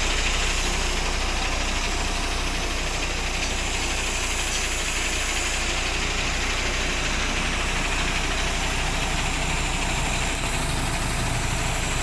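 Concrete mixer truck's diesel engine running steadily.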